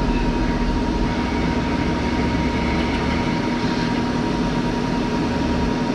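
Steady arc-welding noise: a constant hiss with an even hum under it, shifting slightly a few times in the low end.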